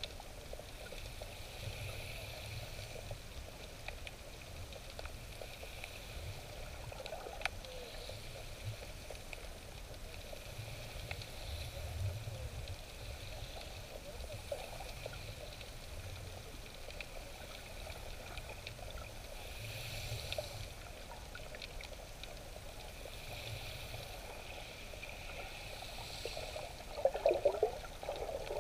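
Sea water heard underwater just below the surface: a steady, muffled wash of moving water, with a short louder gurgle near the end.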